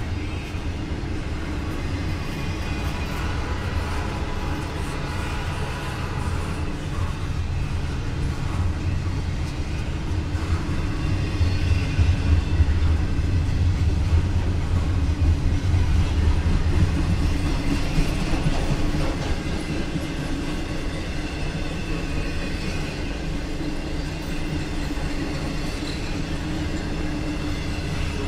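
Norfolk Southern double-stack intermodal freight train's cars rolling past at close range: a steady rumble of steel wheels on the rails, a little louder around the middle.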